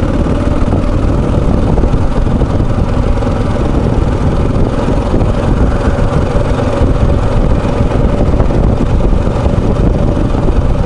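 Motorcycle cruising at a steady speed: a constant engine drone under heavy wind rush on the bike-mounted microphone.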